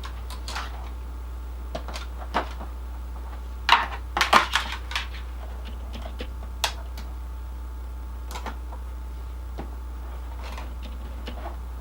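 Gear being handled: scattered clicks and knocks, with a quick run of louder clacks about four seconds in, over a steady low hum.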